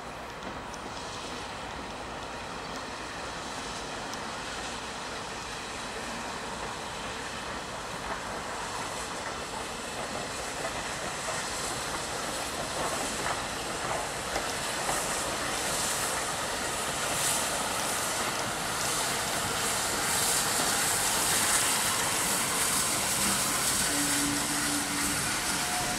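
Steam locomotive hauling a train of coaches past, growing steadily louder as it comes nearer, with a steady hiss and repeated clicks from the passing wheels.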